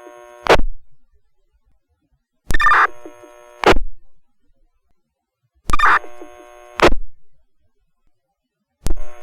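Two-way fire radio channel keyed open and shut repeatedly with nobody speaking, accidental 'happy fingers' on a push-to-talk button. A sharp burst about half a second in, then two short transmissions, each about a second long, opening and closing with a sharp burst and a faint hum while the channel is open, and another burst as it keys up near the end.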